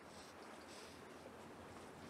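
Near silence: faint open-air ambience with two soft footsteps on wooden pier decking in the first second.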